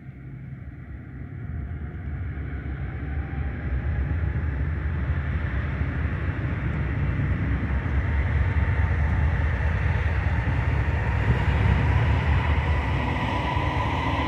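BNSF GE Dash 9-44CW diesel locomotives at the head of an approaching freight train: a deep engine rumble that grows steadily louder as the train draws near. A higher whine rises over the rumble toward the end.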